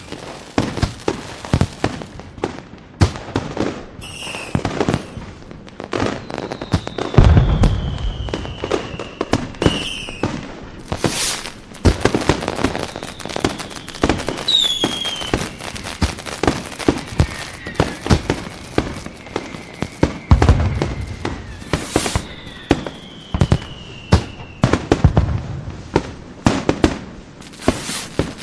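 Fireworks display: a rapid string of bangs and crackling pops, with several long falling whistles and heavy deep booms about a quarter of the way in and again past the middle.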